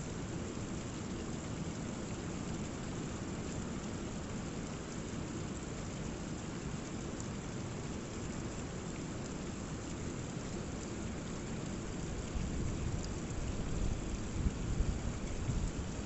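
Rainwater runoff after heavy rain running down a rocky sea cliff, a steady rushing hiss, with a rough sea behind it. A deeper rumble swells up several times near the end.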